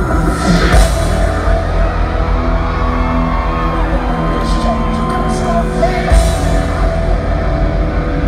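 A metal band playing live at full volume, with a heavy, dense low end and a singer's voice in places.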